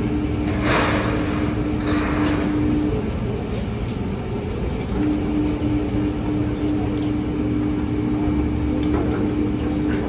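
Strong wind rumbling across the microphone high on an exposed steel structure, with a steady mechanical hum that drops out for about two seconds in the middle. Two short hissing swells come about one and two seconds in, with a few faint clicks.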